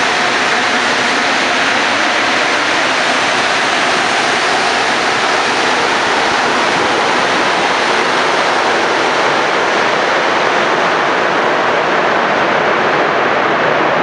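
Montreal Metro MR-73 rubber-tyred train pulling out of the station: a loud, steady rushing noise, with a faint whine that fades out about a second in.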